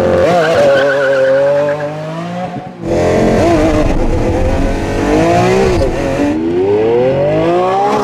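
Car engine at high revs with tyres squealing in wavering tones; near the end the engine climbs steadily in pitch as it accelerates.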